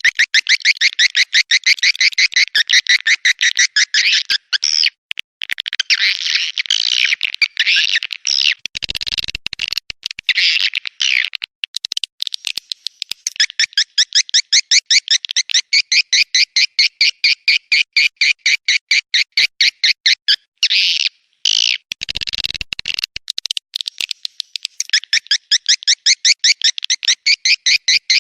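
Swiftlet lure recording: a colony of edible-nest swiftlets making fast, repeated twittering chirp trains of the courtship-colony kind that is played to attract swiftlets to a nesting house. The chirps come several a second in long runs broken by a few short pauses, with a brief low thump twice.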